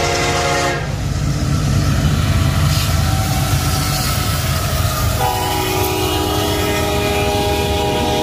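Union Pacific EMD SD70AH diesel locomotive passing close by with a heavy low rumble of engine and wheels, loudest a couple of seconds in. Its multi-chime air horn sounds a chord that breaks off about a second in and sounds again about five seconds in as the double-stack container cars roll past.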